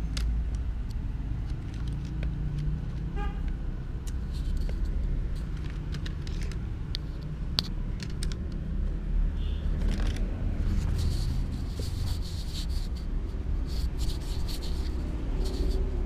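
Steady low rumble with scattered clicks and taps from hands handling a USB cable and a small plastic DC fan, the taps coming more often in the second half.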